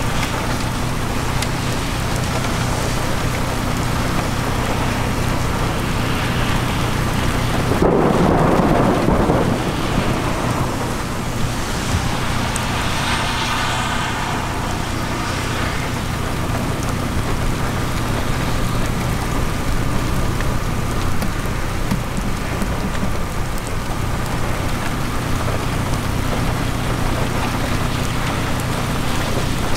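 Steady heavy rain from a severe thunderstorm, with a louder rumble of thunder about eight seconds in.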